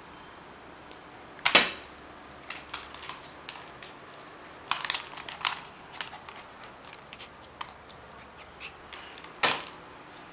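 A hard chew bone clacking and knocking on a tiled floor as a puppy fetches and noses it about. There are loud clacks about a second and a half in, a cluster around five seconds, and another near the end, with lighter taps in between.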